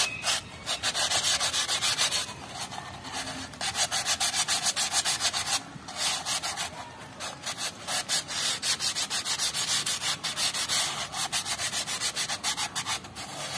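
Fine sandpaper, rolled up and twisted back and forth inside an Isuzu Elf drum-brake wheel cylinder's bore, rasping in quick strokes broken by a few short pauses. It is smoothing the bore so the new rubber wheel-cylinder cups will seal and not wear out quickly.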